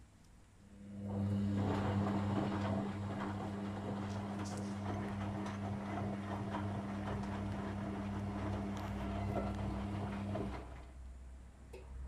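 Whirlpool FL 5065 front-loading washing machine's motor starting up and turning the drum through water in a rinse: a steady motor hum with water sloshing and clothes tumbling. The motor stops about ten and a half seconds in.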